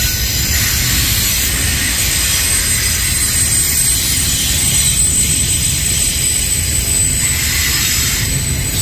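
Double-stack intermodal train's loaded well cars rolling past at close range: a steady rumble of steel wheels on rail under a high hiss, with a thin steady high tone above it.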